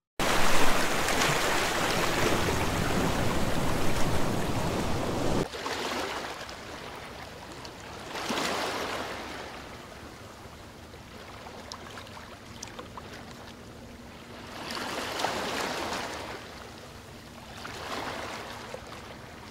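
Sea waves washing onto a beach: a loud, steady rush of surf that cuts off abruptly about five seconds in, then softer waves that swell and draw back three times.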